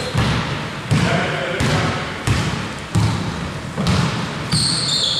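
A basketball being dribbled on the court, one bounce about every two-thirds of a second, with short high squeaks near the end.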